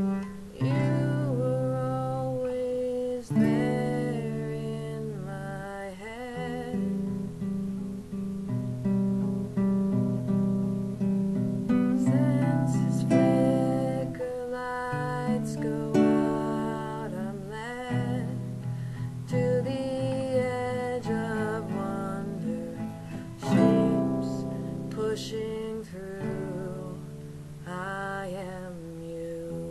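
Classical nylon-string guitar played as song accompaniment, chords plucked and strummed, with a woman's voice singing a melody over it in phrases.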